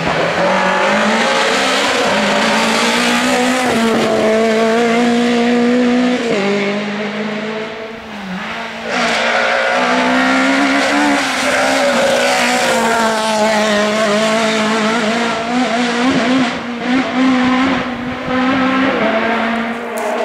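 Rally car engine driven hard through a stage, pitch holding high and stepping with gear changes, dipping briefly on a lift about eight seconds in before climbing again. A few sharp pops come near the end.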